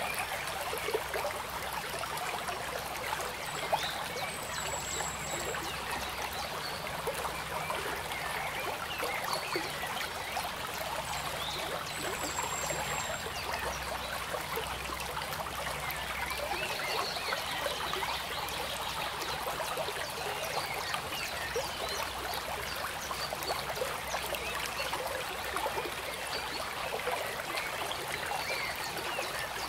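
Steady trickling of running water, like a small stream, with many tiny splashes and a few faint high chirps.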